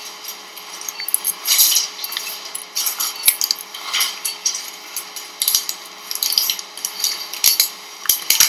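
Irregular clinking and clicking of metal surgical instruments, such as forceps and retractors, being handled, with rustling in between.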